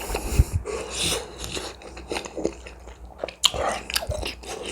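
A person eating close to the microphone: irregular crunchy bites and wet chewing.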